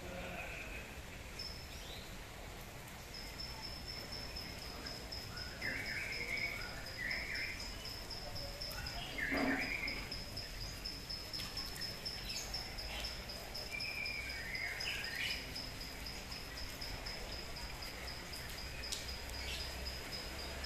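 Rain falling steadily, with birds chirping now and then and one louder, falling call about halfway through. A thin, steady high-pitched insect trill comes in a few seconds in and keeps going.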